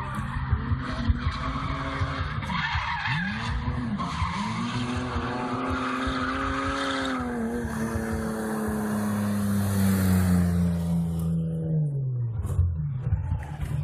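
BMW car being driven hard on track asphalt: the engine revs rise and fall while the tyres squeal and skid. The engine then holds a high steady note before the revs fall away near the end.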